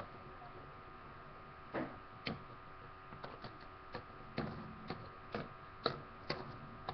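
Two metal-wheeled Beyblade spinning tops, Fang Leone and L-Drago Guardian, spinning in a plastic stadium and clacking against each other. About ten sharp, irregular hits start about two seconds in.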